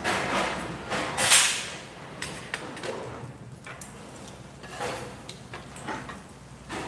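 Short hissing swishes and scrapes of food being handled at a tabletop grill, with tongs working the meat. The loudest is a hissy burst about a second in.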